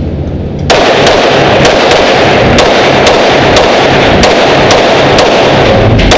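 Competition pistol with a mounted optic firing a fast string of shots on an indoor range, starting just under a second in, about two shots a second. Echo off the range walls fills the gaps so the shots run together.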